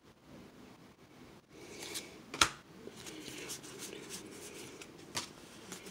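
Pokémon trading cards being handled and slid against each other by hand, with a sharp click about two and a half seconds in and a fainter one near the end.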